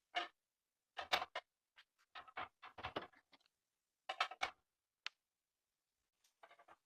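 Irregular short clicks, knocks and brief scrapes of objects being handled, about a dozen over several seconds with short gaps between.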